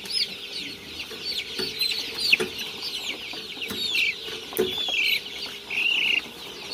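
A crowd of young chicks peeping: a dense chorus of short, falling cheeps, with a few longer, louder held calls in the second half. A sharp click sounds about two seconds in, with fainter clicks here and there.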